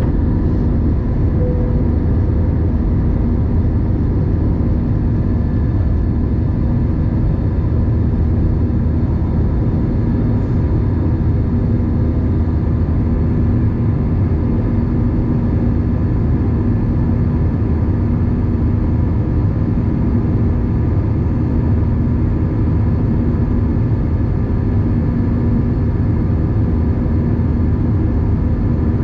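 Airbus A320 turbofan engines at takeoff power, heard from inside the cabin over the wing during the initial climb after liftoff: a steady, loud rumble with a constant hum of engine tones running through it.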